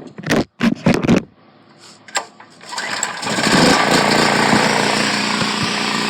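Predator 4000-watt generator's small single-cylinder four-stroke engine being started: a few sharp clattering knocks in the first second, a short lull, then the engine catches about three seconds in and runs steadily.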